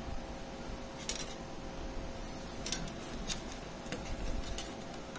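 Light, scattered clicks and taps of wire ends and fingers against a solar panel junction box and its metal terminal strips as the wires are positioned, over a faint steady hum.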